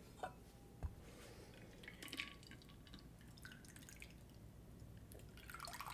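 A shaken gin cocktail trickling faintly through a cobbler shaker's strainer into a coupe glass, with a couple of light clicks in the first second.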